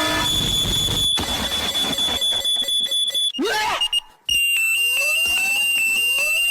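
A steady, high-pitched electronic alarm-like tone that breaks off about three seconds in. After a brief silence it resumes at a slightly lower pitch, with rising swooping sounds beneath it.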